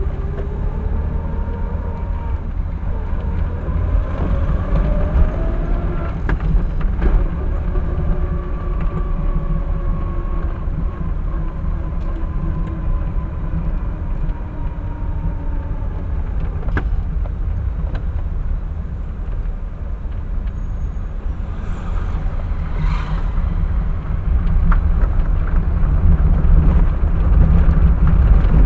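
A vehicle driving, recorded by its dashcam: a deep steady road and engine rumble, with the engine's note climbing over the first few seconds, then holding and slowly falling. The rumble grows louder near the end.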